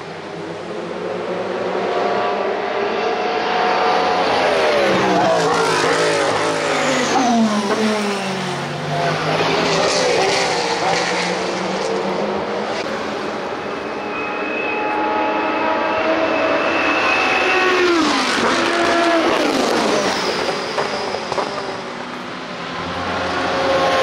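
IMSA race cars' engines at high revs passing by one after another, each engine note falling in pitch as the car goes past. The cars come in two bunches, about four seconds in and again around seventeen seconds.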